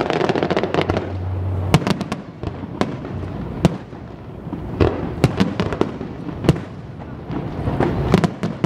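Aerial firework shells bursting: an irregular series of sharp bangs over a continuous low rumble from further bursts.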